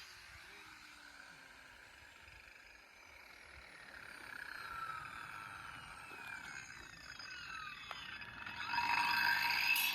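Large angle grinder taken off the cut: with the loud cutting noise gone, the spinning disc's whine falls slowly in pitch as it coasts down. Near the end the grinder's whine and noise rise again as work on the concrete resumes.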